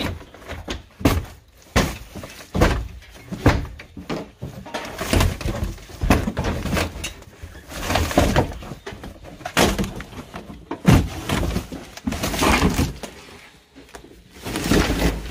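Mazda RX-8 roof lining and interior trim being pulled out by hand: a run of irregular snaps, cracks, rustles and knocks as the moulded headliner panel is worked free.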